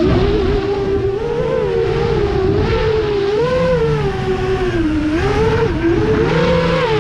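FPV quadcopter's brushless motors whining. The pitch rises and falls continually with the throttle, over rushing wind noise.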